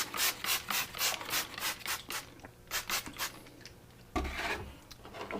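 Steel edge of a hand-forged petty knife stroked back and forth on a wet Japanese natural aoto sharpening stone, a rasping scrape about three strokes a second, pausing about two seconds in and resuming briefly. A short low bump a little after four seconds.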